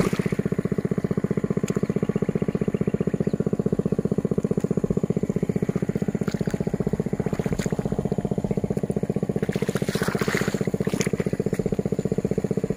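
A small engine running steadily with a rapid, even putter, with a few brief noises about ten seconds in.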